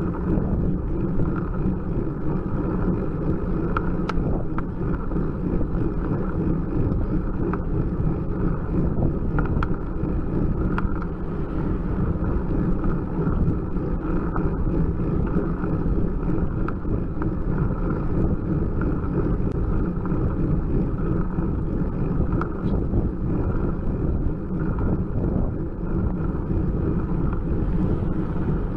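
Steady wind rushing over a bike-mounted camera's microphone, mixed with the rumble of a bicycle's tyres rolling on asphalt, with a few faint clicks.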